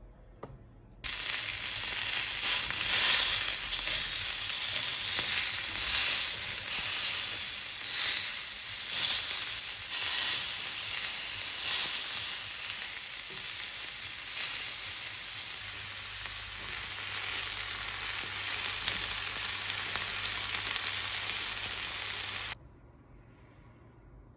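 Food frying in a pan: a steady sizzling hiss with crackles that cuts in about a second in and stops abruptly near the end. About two-thirds of the way through the sizzle turns softer and a low hum comes in under it.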